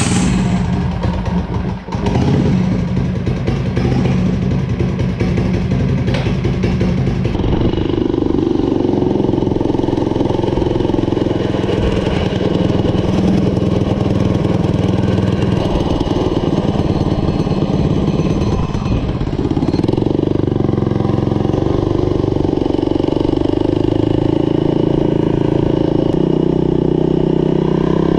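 Turbocharged Predator 212 single-cylinder four-stroke engine on a mini bike running loud under way, with a billet +40-rod bottom end. Engine speed climbs about a quarter of the way in, eases off briefly about two-thirds through, then picks up again.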